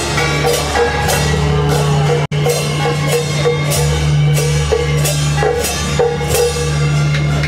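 Loud music with a steady drum-kit beat over long, sustained bass notes, briefly cut off a little over two seconds in.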